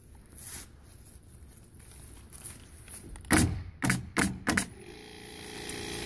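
Four sharp knocks on wood in quick succession about three seconds in, from fastening shed trim. Near the end a steady motor hum starts up and keeps running.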